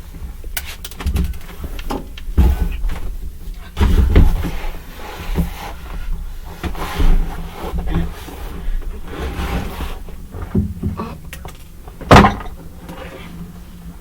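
Plastic model kit parts being handled and fitted: irregular clicks, taps and handling noise, with one sharp knock about twelve seconds in.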